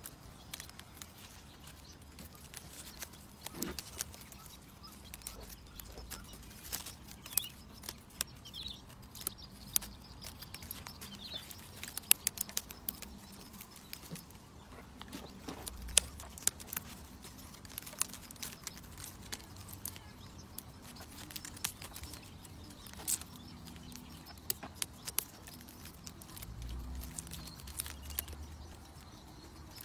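Irregular light clicks and rustles of dry, yellowing leaves being plucked and stripped by hand from a ta-ko (Thai persimmon) bonsai; the leaves come away with almost no force. A few low bumps come in between.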